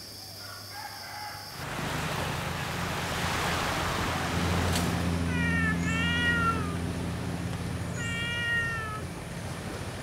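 A domestic cat meowing twice, the first call about halfway through and the second about two seconds later, each rising and then falling in pitch.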